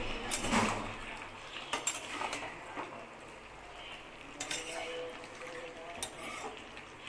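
Steel spatula scraping and clinking against a steel kadai as goat meat is stirred in its own released juices during slow frying, with a few sharp metal clinks spread through.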